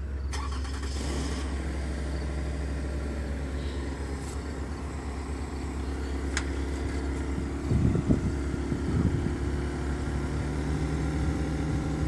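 Metra MP36 diesel locomotive of a standing commuter train idling, a steady low rumble with an even hum. A few louder low thumps about two-thirds of the way through.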